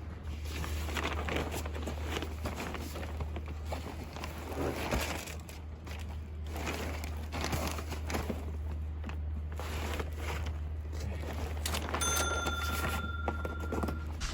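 Rummaging through clutter: irregular rustling, crinkling and knocking as items are shifted and handled, over a steady low hum. A brief steady high tone sounds near the end.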